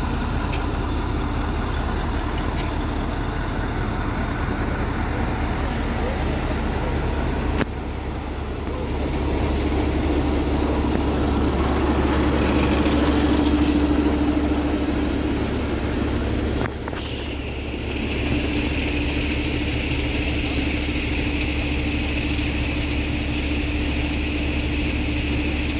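Fire truck engine running steadily, a low rumble with a held hum. The sound changes abruptly twice.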